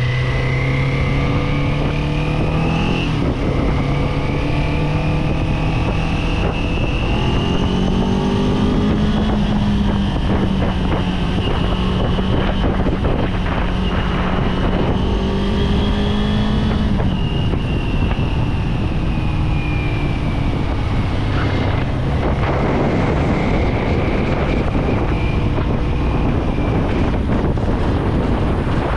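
Kawasaki Z400 parallel-twin engine under way: it revs up, drops pitch at a gear change about three seconds in, then pulls and holds a steady note. About two-thirds of the way through it falls away as the throttle is eased off. Wind rushes over the microphone throughout.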